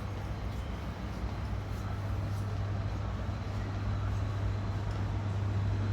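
Air-conditioning ventilation: a steady low hum under an even wash of air noise.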